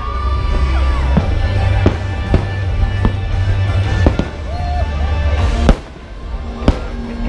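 Aerial firework shells bursting: sharp bangs about once a second over a deep, steady rumble that drops away after a loud bang near the end.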